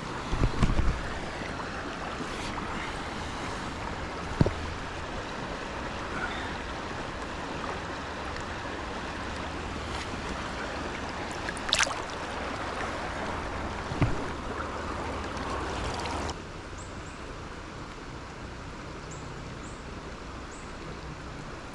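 River water flowing with a steady rush, with a few short knocks along the way. The rush steps down a little in level about sixteen seconds in.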